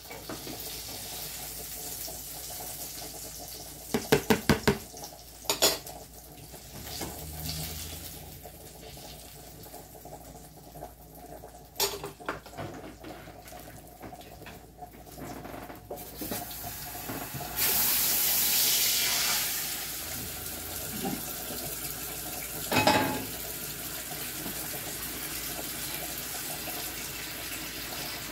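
Washing up at a kitchen sink: dishes clink and clatter, with a quick run of knocks a few seconds in. Tap water then gushes loudly for a couple of seconds and keeps running steadily to the end, with one more knock about three quarters of the way through.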